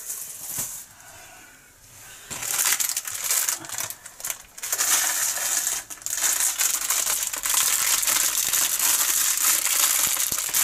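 Crinkly plastic wrapping around a bundle of diamond-painting drill packets being handled and pulled open by hand. It is a steady crinkling and crackling that starts about two seconds in, after a quieter opening with a few small handling clicks.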